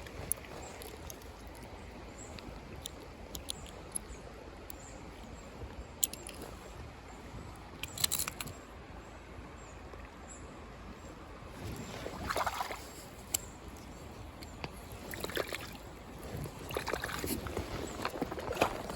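Mountain stream flowing steadily, with scattered sharp clicks and a few brief swishing sloshes near the water.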